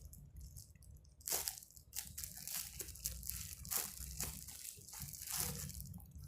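Plastic packaging crinkling and rustling as it is handled, in a few soft, irregular crinkles.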